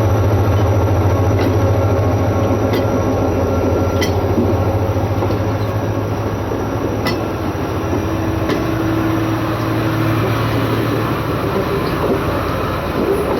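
Train running on the rails: a steady low rumble and hum with a few sharp, irregular clicks.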